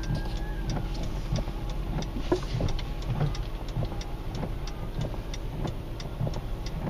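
Car running slowly, heard from inside the cabin: a steady low hum with scattered light ticks and taps.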